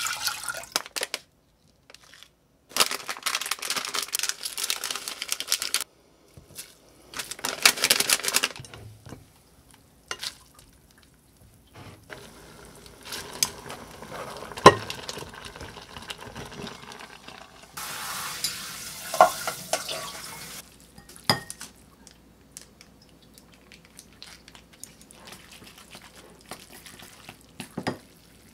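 A run of kitchen cooking sounds in separate bursts: water poured into a pot, then noodles stirred with chopsticks in the pot and in a bowl, with sharp clicks of chopsticks against the pot and bowl.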